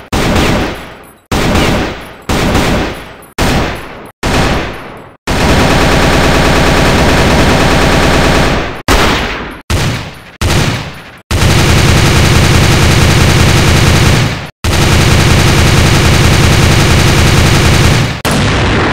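Gunshot sound effects: about five single shots, each ringing out and fading, then a long burst of rapid automatic fire, three more single shots, and two further long bursts of automatic fire.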